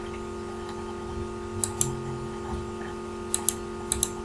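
Computer mouse clicking: three quick pairs of sharp clicks, over a steady electrical hum.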